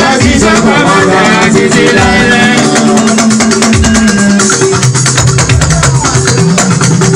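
Live band music with a shaker rattling out a fast, even beat over guitar, and a man singing into a microphone.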